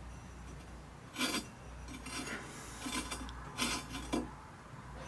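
Glaze-fired stoneware pots scraping and rubbing against each other as they are handled in the packed kiln, a few short scrapes, the first about a second in.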